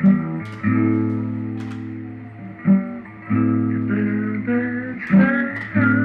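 Background music: a guitar strumming chords that ring out and fade, with a new strum every second or two.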